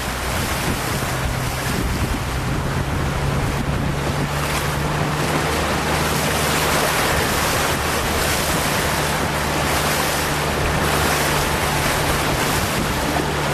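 Wind of 25–30 knots buffeting the microphone over rough, breaking chop, with a steady low engine hum underneath.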